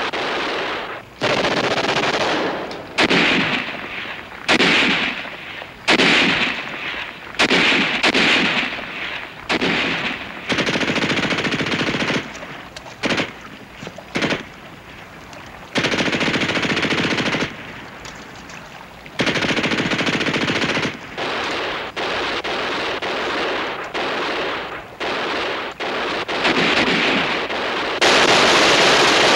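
Repeated bursts of automatic gunfire in a firefight, each a second or two long with short gaps between, ending in a longer, louder burst.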